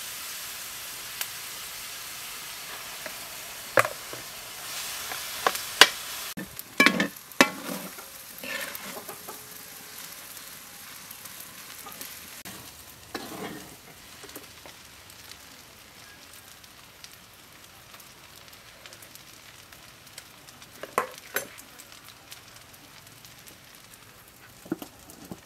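Rice frying in a metal wok, sizzling steadily and gradually quieter, while a metal spatula stirs and scrapes it. The spatula knocks sharply against the wok now and then.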